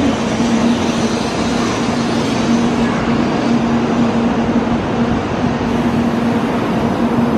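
N700-series Shinkansen train pulling into the platform, a steady rush of running noise from the passing cars with a low steady hum underneath.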